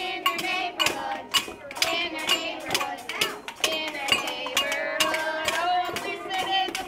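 Group of children singing a song together, a woman's voice singing along, with frequent short sharp clicks or knocks over the singing.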